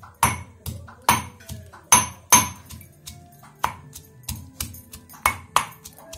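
A pestle pounding sliced onion, garlic, ginger and whole spices in a mortar to crush them into a paste. The strikes come irregularly, about two a second, each a sharp knock with a brief ring.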